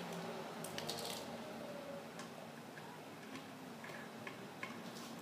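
Light plastic clicks and taps of a toy knife and fork on a toy plate of play food, a quick cluster about a second in, then single faint taps spread apart.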